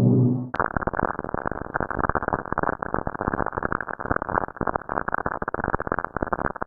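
A low droning tone gives way, about half a second in, to dense, irregular crackling static: a space radio or plasma-wave recording rendered as sound.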